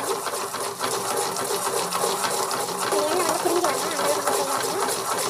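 Batter sizzling in hot oil in a pan with a dense crackle, while a metal spoon stirs and scrapes it against the pan.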